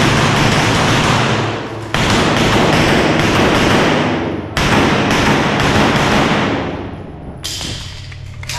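Pistol gunfire during a timed match stage: groups of rapid shots that break out suddenly about two seconds in, again about four and a half seconds in and near the end, with the sound fading between the groups.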